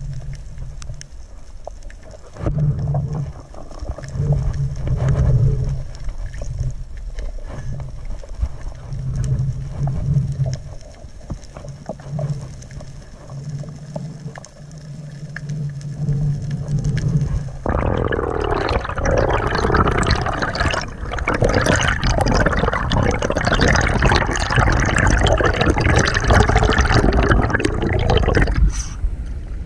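Water gurgling and sloshing. About eighteen seconds in it turns suddenly into louder, denser splashing.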